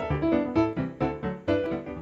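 Background music: a piano playing a steady run of notes, about four a second.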